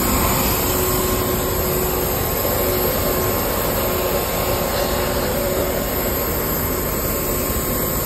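Steady rushing roar of aircraft engine noise with a faint, steady whine running through it.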